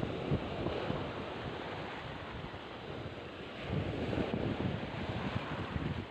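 Surf washing onto a beach, with wind gusting on the microphone in low rumbles that swell again about two-thirds of the way through.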